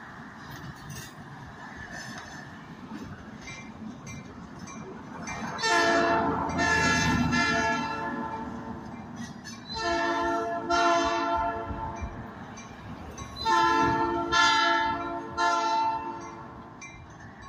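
Diesel locomotive air horn, a geep road-switcher's, sounding a chord of several notes in three groups of two or three blasts, starting about 6, 10 and 13.5 seconds in. Road traffic runs past between and under the blasts.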